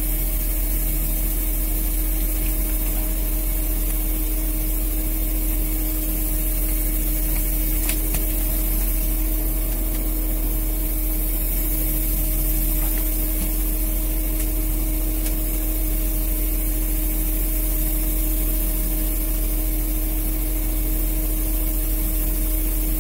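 Fishing boat's engine running steadily at a constant speed: an even hum over a low drone.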